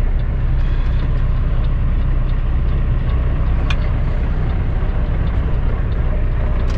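Cummins ISX diesel engine of a Kenworth W900L running steadily at low revs, heard from inside the cab, with one sharp click about three and a half seconds in.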